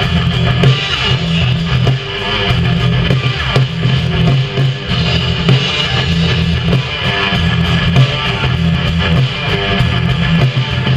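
Live rock band playing an instrumental passage with no singing: electric guitar over a pulsing bass line and drums.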